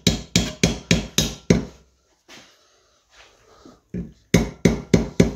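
Hand tapping with a hammer, about three sharp knocks a second, in two runs with a short pause between, driving a new ABS wheel-speed sensor into its seat in the steering knuckle.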